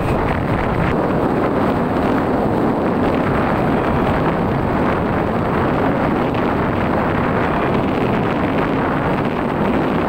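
Steady rushing noise of wind on the microphone mixed with the running noise of a moving vehicle, with no distinct engine note or separate events.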